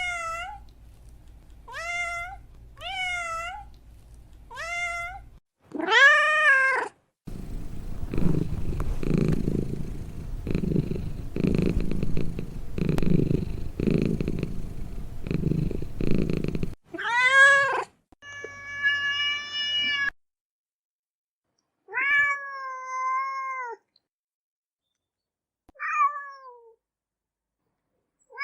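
Cats meowing: several short rising-and-falling meows in the first five seconds and a louder one at about six seconds. Then about nine seconds of low, pulsing purring, followed by more meows, one of them drawn out for a couple of seconds.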